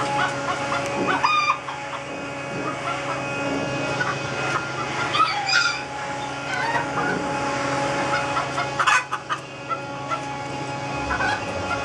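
Chickens clucking and calling, with a rooster crowing; the loudest calls come about a second in, around five seconds in and near nine seconds in. A steady hum of several even tones runs underneath.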